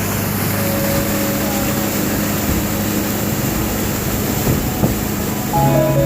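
Tour boat's motor running steadily under way, a low engine hum under a rush of wind and water. Music with a simple melody comes in near the end.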